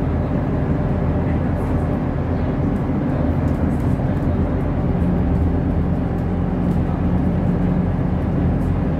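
Engine and road noise of a moving city bus heard from inside the passenger cabin: a steady, low engine hum over tyre noise.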